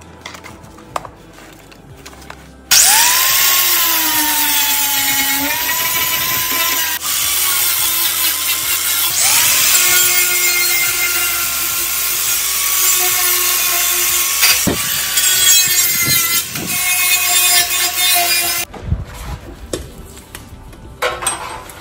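Angle grinder with a 60-grit sanding disc stripping paint off the sheet-metal edges of a truck rocker panel for welding. It starts about three seconds in, and its motor whine dips in pitch as the disc bites. It stops briefly around seven seconds, runs again until near the end, then cuts off, leaving a few knocks of the panel being handled.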